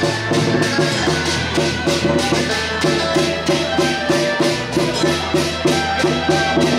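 Loud music with a fast, even percussion beat over sustained pitched notes and a steady bass.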